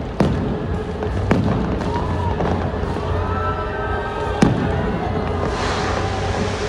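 Fireworks shells bursting: three sharp bangs, one right at the start, one about a second later and one about four and a half seconds in, each with a low rumbling tail, over a continuous din.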